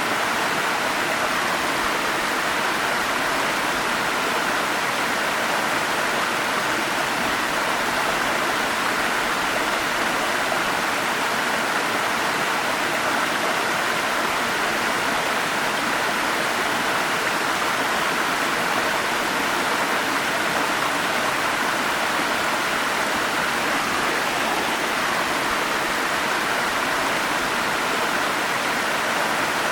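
Forest stream flowing fast, a steady, unbroken rush of water.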